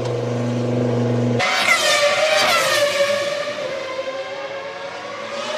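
Formula One car engines. A steady low engine note gives way suddenly, about a second and a half in, to a high-revving engine whose pitch falls and then holds. It starts to rise again near the end.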